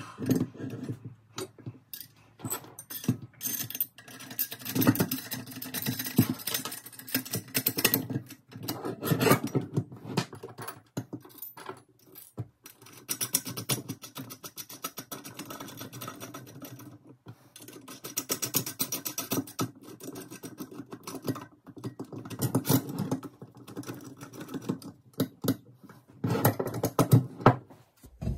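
Metal parts of a chainsaw mill being handled and fitted together on a wooden workbench: irregular clinks, rattles and knocks of rails, brackets and bolts, with short pauses.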